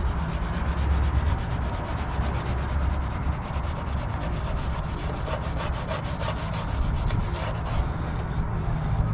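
An oxidation-removal wipe scrubbed back and forth over an oxidized plastic headlight lens: a continuous, fast scratchy rubbing as the wipe grinds against the lens's rough, pitted surface.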